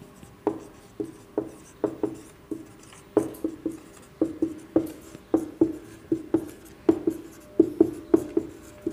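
Marker pen writing on a whiteboard: a run of short tapping strokes, about two a second, each with a brief low ring from the board.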